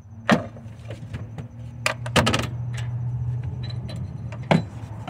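Metal clicks and clinks of a long socket extension and wrench working on an engine's oxygen sensor to loosen it: single sharp clinks about a third of a second in and near two seconds, a quick cluster just after, and one more near the end, over a steady low hum.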